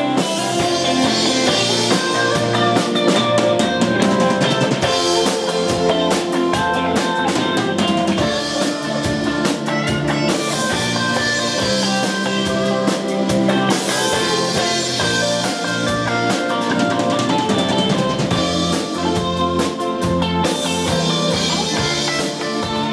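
Live rock band playing loudly: drum kit with bass drum and snare hits driving a steady beat under electric guitars.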